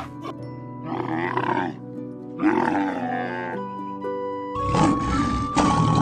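Background music with a steady melody, over which an animal calls twice, each call about a second long. A harsher, noisier animal sound joins the music about four and a half seconds in.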